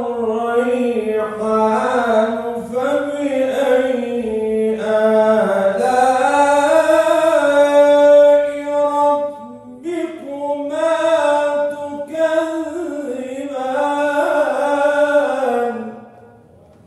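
A man reciting the Quran in Arabic in a melodic, chant-like style, with long held and ornamented notes. There is a short pause for breath about ten seconds in, and the phrase ends shortly before the close.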